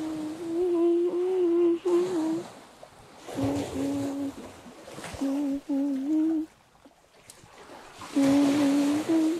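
A person humming a tune in four short phrases, the notes held and stepping between a few pitches. Small waves wash onto the river bank underneath.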